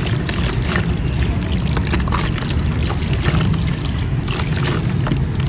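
Compressed mint-green marble powder crumbling in water: a dense run of small gritty crackles over a steady wet sloshing wash.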